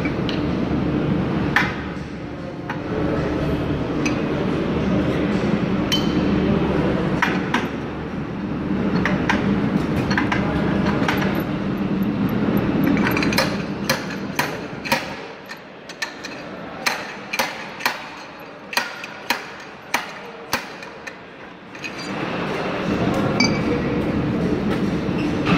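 Sharp metal-on-metal clinks and knocks as a bearing seating tool is driven against the input shaft bearing of an Eaton Fuller heavy-duty truck transmission to seat it. The strikes come singly at first over a steady low background hum; past the middle comes a run of about a dozen quicker strikes, roughly two a second.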